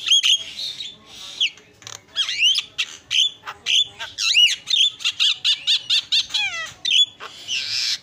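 Javan myna calling loudly: a fast, varied string of sharp whistled notes and rising and falling glides, broken by harsh squawks. A quick run of repeated notes comes about five seconds in, followed by a falling glide, and a harsh squawk comes near the end.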